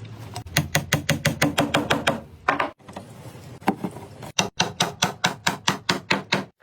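Rapid evenly spaced knocks, about five a second, in two runs with a pause of about a second between, typical of hammering on wood.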